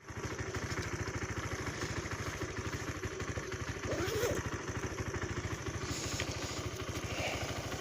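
Motorcycle engine idling steadily with an even low pulsing.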